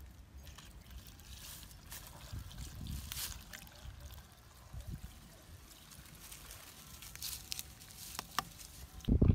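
Two-stroke fuel mix (petrol and oil at 1:25) trickling from a plastic bottle through a funnel into a small engine's fuel tank, faint, with a few small clicks from the bottle. A sudden loud low rumble starts just before the end.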